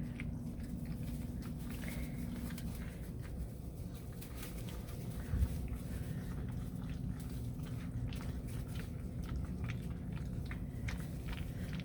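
Coonhound puppies eating from a dish: many small, scattered chewing and lapping clicks over a steady low hum, with one louder knock about five seconds in.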